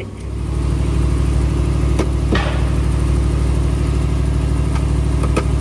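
A nearby vehicle's engine comes in right at the start and settles into a steady idle. A few sharp clicks sound over it about two seconds in and again near the end.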